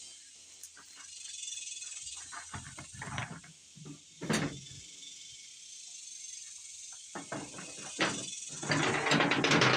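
Insects droning steadily in the background, with scattered metallic clinks and clanks of hand tools and a denser clatter near the end.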